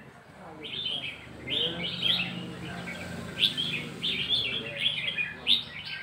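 Caged red-whiskered bulbuls singing: short chirping song phrases one after another, starting about half a second in.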